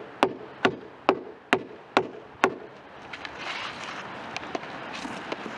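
Mallet striking mechanical fasteners to drive them into a 4-inch Owens Corning Foamular XPS foam insulation board against a foundation wall: six sharp, even blows about two a second, stopping after about two and a half seconds.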